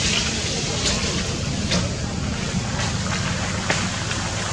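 Steady outdoor background noise with a low rumble, and a few faint clicks scattered through it.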